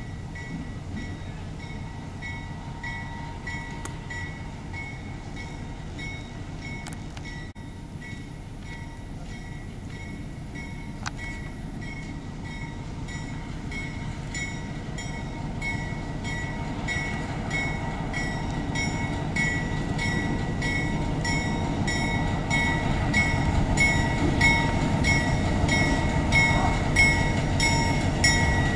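EMD SW1500 diesel switcher's 12-cylinder engine running as it approaches, the rumble growing steadily louder. Its bell rings throughout, about two strokes a second.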